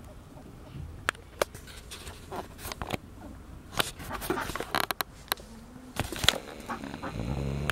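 Handling noise: scattered sharp clicks, knocks and rustling as a handheld camera is moved around over plastic seedling trays, with a short low-pitched sound near the end.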